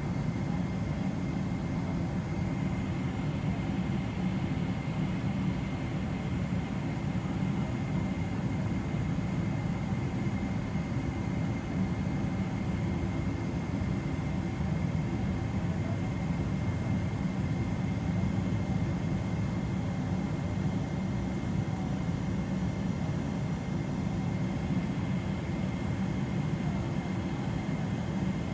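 Cabin noise of a Boeing 777-200LR with its GE90 engines at ground idle: a steady low rumble with a faint high whine over it, unchanging throughout.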